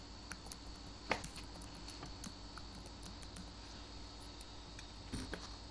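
Faint, scattered computer keyboard key clicks as a short name is typed, the clearest one about a second in, over a steady low electrical hum and a thin high tone.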